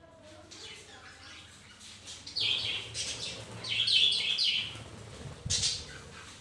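Caged parakeets chirping. Faint chatter gives way to two loud runs of quick high chirps starting about two and a half seconds in, then one short sharp call near the end.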